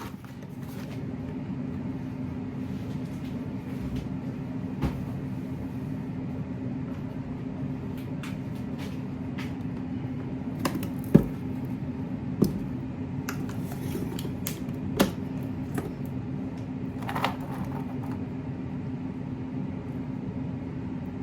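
Air fryer running with a steady fan hum, and a few sharp knocks and clatters from items being handled, the loudest about halfway through.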